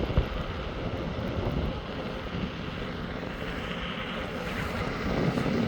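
Wind buffeting the microphone, with road noise, while riding an Inmotion V12 electric unicycle at speed. There is a short thump just after the start.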